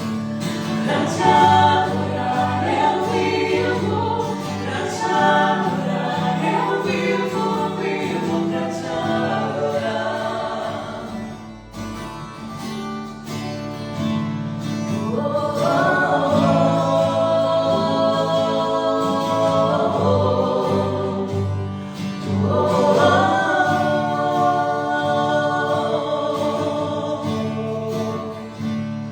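Christian worship song: voices singing over a steady instrumental backing, with long held notes in the second half and a short dip in the music about twelve seconds in.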